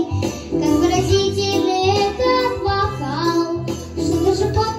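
A young girl singing a children's song into a microphone over an instrumental backing track.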